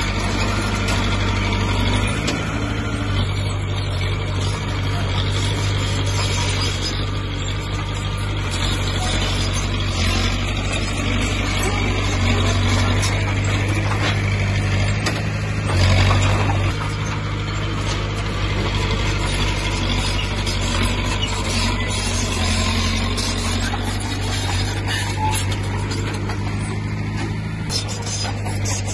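Heavy-machinery diesel engine running steadily with a low, even hum, with one brief louder burst about sixteen seconds in.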